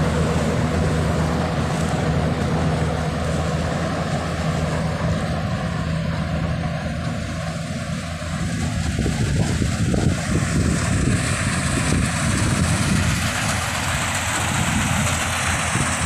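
Combine harvester's engine running steadily while harvesting corn, a low drone that grows rougher and a little louder about halfway through.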